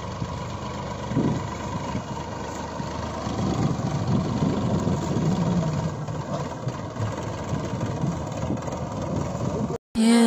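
Engine idling steadily, a tractor-like running sound that cuts out near the end. Electronic outro music starts just after it.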